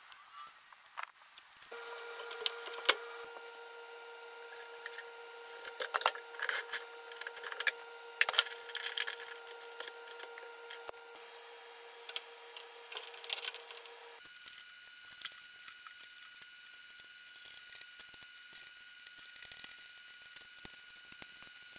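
Scattered clicks and clinks of hand tools working metal fittings on a steel frame, over a steady high hum whose pitch changes about two-thirds of the way through.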